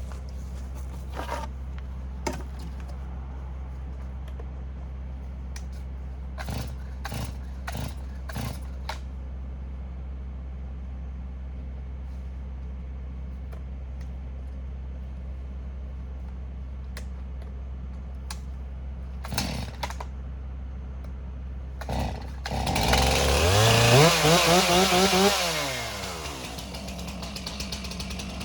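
Stihl MS362 two-stroke chainsaw engine revved up sharply about three-quarters of the way in, held at high revs for a couple of seconds, then let back down. Beforehand there is a steady low engine hum with a few short, sharp bursts.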